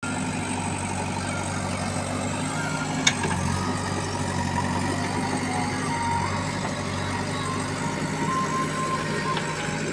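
Diesel engine of a backhoe loader or tractor running steadily at a low idle, with one sharp knock about three seconds in.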